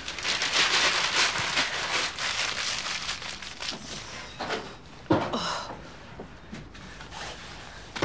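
Newspaper being crumpled, torn and stuffed into a wood stove among kindling, the rustling heaviest in the first few seconds; a single sharp knock about five seconds in.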